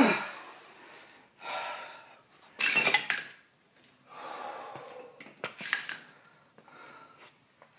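Hard breathing and sharp exhales, irregularly spaced, from a man who has been straining on a four-way lug wrench against an overtightened lug nut; the loudest breath comes about three seconds in. A couple of short clicks follow around the middle.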